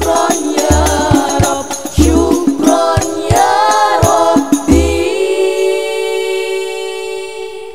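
Several women singing sholawat in unison over rebana frame drums with deep bass strokes, amplified through the stage sound system. About five seconds in the drumming stops and the voices hold one long final note that fades out, ending the song.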